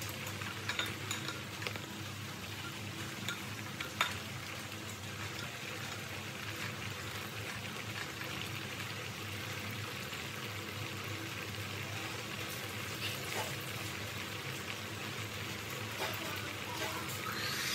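Breadfruit chunks simmering in sugar syrup in a clay pot: a steady bubbling sizzle with scattered sharp pops, the loudest about four seconds in. A wooden spatula stirs the pieces partway through.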